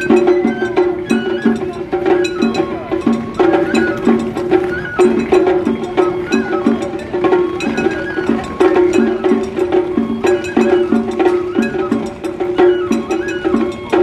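Japanese festival hayashi music: a bamboo transverse flute (shinobue) playing a stepping melody over taiko drums beating a steady rhythm.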